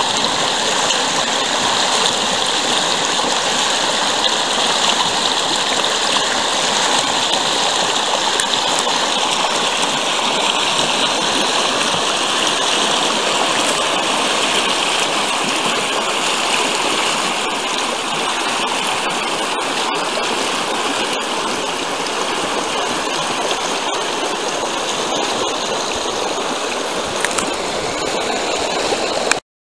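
Shallow creek water rushing and splashing over rocks in small rapids, a steady rushing noise that cuts off suddenly near the end.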